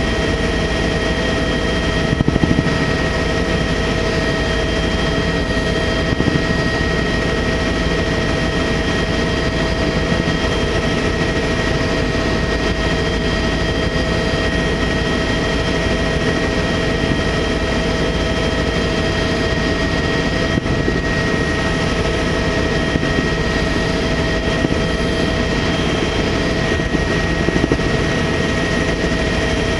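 Tour helicopter in steady flight, its engine and rotor noise running loud and even, with a steady high whine on top.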